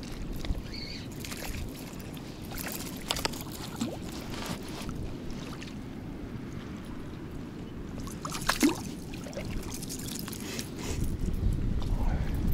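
River water lapping and trickling around a wading angler's legs, with scattered clicks and knocks from a spinning reel and rod. In the last second or two a small hooked fish splashes at the surface as it is drawn in on the lure.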